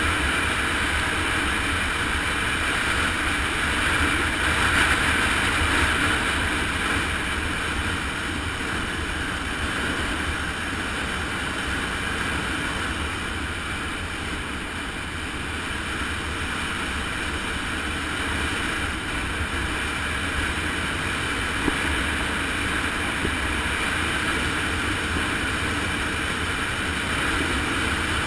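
Steady rush of wind over a moving camera's microphone during a fast descent on an asphalt mountain road.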